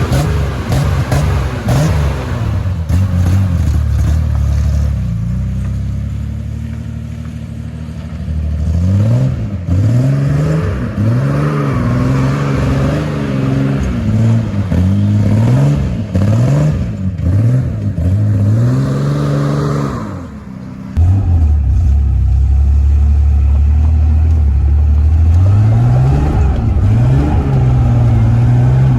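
A 1987 Ford Bronco II's 2.9-litre V6 being driven off-road: the engine revs up and down repeatedly under throttle, drops off briefly, then holds at high revs. A few knocks and rattles come in the first couple of seconds.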